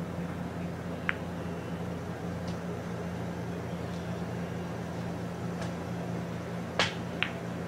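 Pool balls clacking on a pool table: one short click about a second in, then two sharp clacks near the end, the first the louder, over a steady low room hum.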